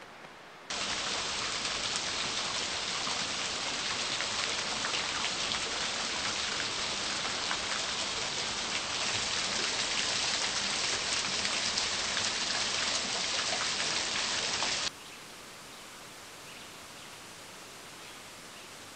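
Water drops spattering densely onto a water surface, a thick patter of small splashes that starts about a second in and cuts off suddenly about fifteen seconds in. After that only a soft, steady hiss of gently flowing stream water remains.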